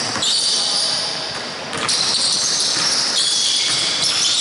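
Basketball game sounds in a gym: a ball bouncing on the court amid the busy noise of play in a large, echoing hall.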